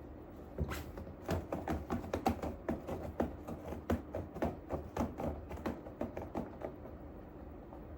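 A hand patting a cat's rump like a drum: a quick run of soft pats, about four or five a second, that starts about a second in and stops near the end.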